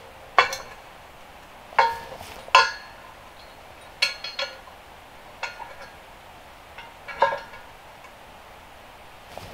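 Steel solar-panel racking rails clinking and ringing as they are handled and fitted together: a string of irregularly spaced metallic clinks, each ringing briefly.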